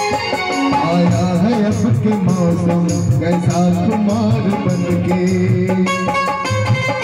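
A Hindi film-style song with singing and a steady drum beat, played loud through a stage PA sound system.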